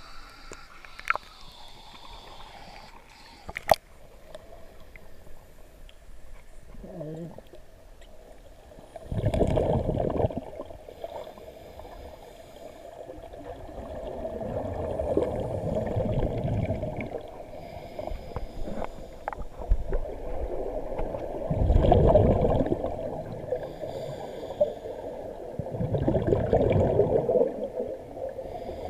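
Scuba diver's exhaled breath bubbling and gurgling out of the regulator underwater, in four long bursts roughly every five seconds from about a third of the way in. Two sharp clicks come in the first few seconds.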